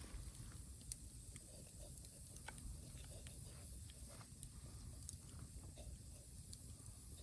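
Faint, scattered crackles and ticks from the embers of a bamboo fire, over a low rumble and a steady high hiss.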